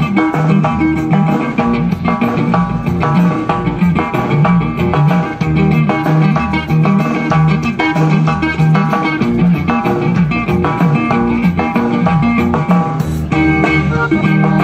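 Norteño band playing live on stage: plucked strings and bass keeping a steady, bouncing beat with drums.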